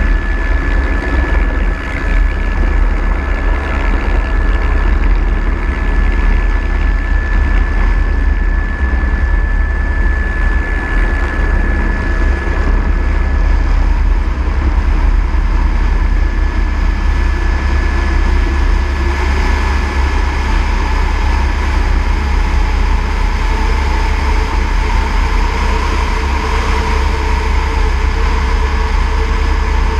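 Eurocopter AS350 B3e single-turbine helicopter in flight: a heavy, steady low rumble of the main rotor with a high turbine whine over it. The whine fades about halfway through, and a lower tone rises in pitch after about twenty seconds.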